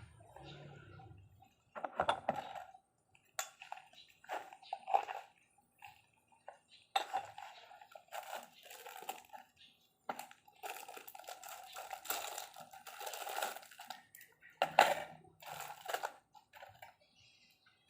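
Irregular small metallic clicks and scrapes of a piston ring being spread and worked by hand into its groove on a piston, in short bursts.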